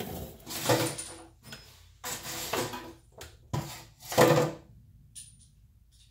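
Tools clattering as someone rummages through a toolbox for a socket extension: four or five separate clanks and knocks, the loudest about four seconds in, then it goes quiet.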